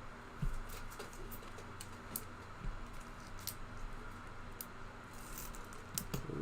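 Trading cards being handled and flipped through: faint scattered clicks and flicks of card edges, with a couple of soft thumps, the clicking growing busier near the end.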